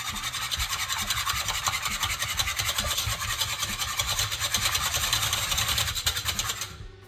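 Wire balloon whisk beating eggs in a non-stick pot: a fast, steady scraping rattle of the wires against the pot's sides and bottom. It stops shortly before the end.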